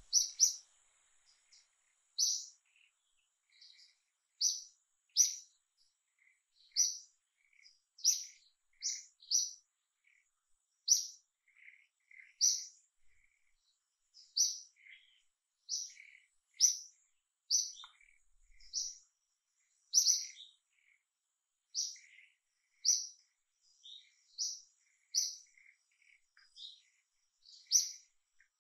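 A small bird chirping over and over: short, sharp high chirps about every second or two, with softer, lower notes between them.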